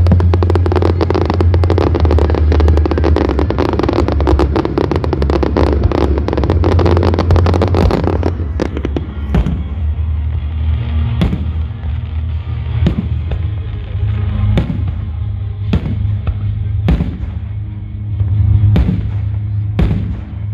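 Fireworks going off over music with a steady heavy bass: a dense, rapid crackling volley for about the first eight seconds, then single bangs roughly once a second.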